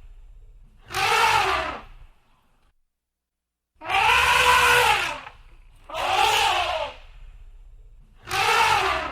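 Elephant trumpeting: four loud blasts, each about a second long, rising and then falling in pitch over a low rumble. The longest blast is in the middle, and the last is cut off at the end.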